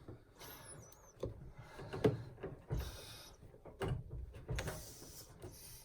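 Faint handling sounds as a drain hose is worked onto a tumble dryer's drain spigot: a few light knocks, a brief squeak near the start, and two short scraping rustles later on.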